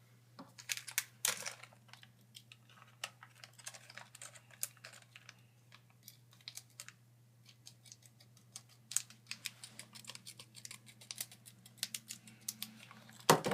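Packaging of a new SSD being pried and worked open by hand: irregular sharp clicks and crinkles. The clicks come thickly for the first couple of seconds and again in the last few, with a faint steady low hum underneath.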